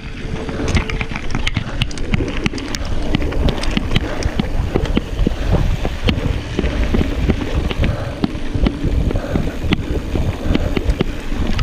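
Mountain bike rolling over a rough dirt singletrack, heard through a handlebar-mounted camera: a steady low rumble of tyres and wind with many sharp rattles and clicks from the bike jolting over the ground.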